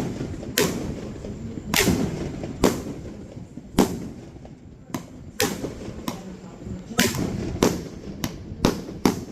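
Aerial firework shells bursting: about a dozen sharp bangs at uneven intervals, each with a short trailing rumble.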